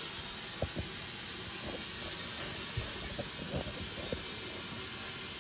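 Water running through a valve into a steam boiler, a steady hiss with a few faint clicks.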